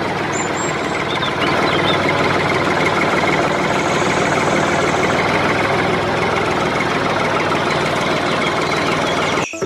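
A motor running steadily with a fast, even chatter, then cutting off abruptly near the end.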